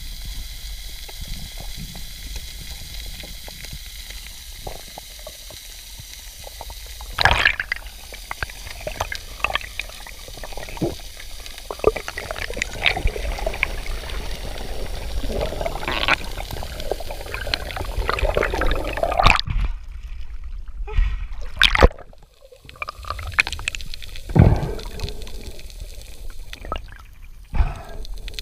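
Underwater sound picked up by a submerged camera during a dive: water moving around the microphone, with scattered sharp clicks and knocks. The sound goes duller and quieter for a few seconds about two-thirds through.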